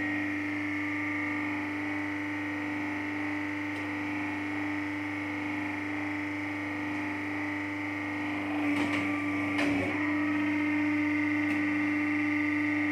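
Hydraulic injection moulding machine running with a steady, high-pitched hum from its hydraulic pump and motor. About nine seconds in comes a short clatter of knocks.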